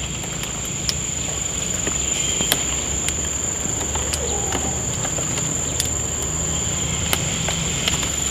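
Insects shrilling with a steady high whine, over a low steady rumble, with a few light clicks scattered through.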